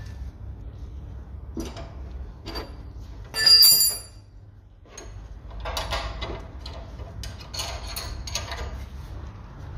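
Spanner work on the nut of a car's anti-roll bar drop link: scattered metallic clicks and scraping, with one sharp ringing clink of metal on metal about three and a half seconds in.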